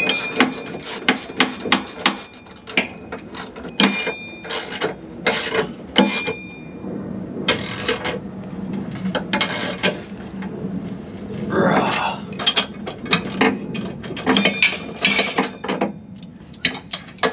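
Irregular metal clicks and clinks of hardware being worked by hand on a gooseneck hitch mounting bracket up against a pickup's frame rail, some clinks ringing briefly.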